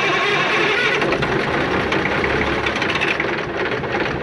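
Cummins 400 Big Cam IV diesel engine of a 1988 Kenworth K100E cabover turning over and firing with a loud, fast, steady clatter, on its first start after sitting untouched for nine years. The clatter eases slightly near the end.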